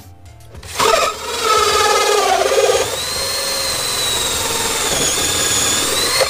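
Cordless drill driving a hole saw through a van's wall panel. The drill starts about a second in and grinds with a wavering pitch as the teeth bite, then settles into a steady high whine about three seconds in, and stops suddenly near the end.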